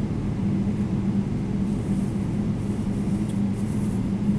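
Cabin noise of a Boeing 777-300ER on its takeoff run: a steady low engine drone with rumble, and a faint high hiss that joins in about two seconds in.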